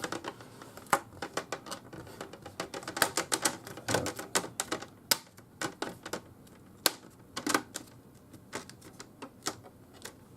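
Plastic screen bezel of a Dell Latitude 3560 laptop being pressed back onto the lid, its clips snapping into place in a run of sharp, irregular clicks, some in quick clusters.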